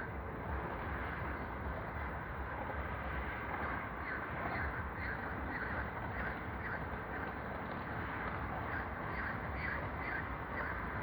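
Short animal calls repeated about two a second in runs, several times, over a steady low background rumble.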